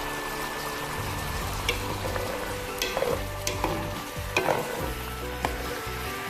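Pork belly braise sizzling and bubbling in the pan as the sauce reduces, with a utensil clinking against the pan several times in the middle.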